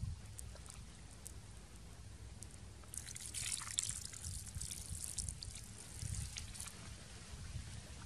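Water trickling and dripping onto plucked raw quail in a wicker basket as they are rinsed by hand, the water running more heavily from about three seconds in until near the end.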